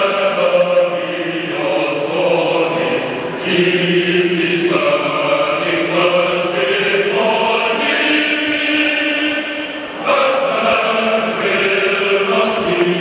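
Football crowd singing together in a stadium, a slow tune with long held notes.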